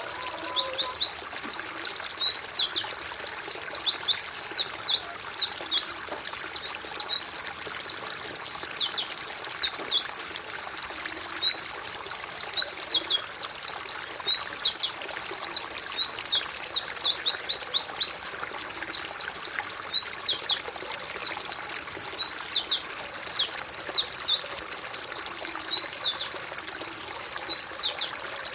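White-eye (pleci) song: a continuous stream of rapid, high, thin chirps, each note sliding quickly downward, in the wild-style chattering used as masteran (tutor song) for caged white-eyes.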